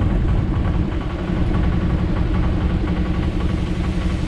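Auto-rickshaw (tuk-tuk) engine running at a steady pace, a constant drone with a low rumble underneath.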